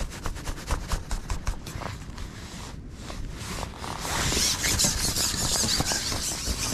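Handling noise from a carbon fishing pole being pushed out over the water: a run of light clicks and knocks, then a hissing rush from about four seconds in, over a low rumble of wind on the microphone.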